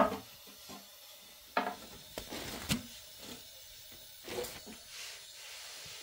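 Scattered wooden knocks and taps of thin rolling pins on small round wooden boards as flatbread dough is rolled, with the dry rustle of baked flatbread sheets being handled. A sharp knock at the very start is the loudest.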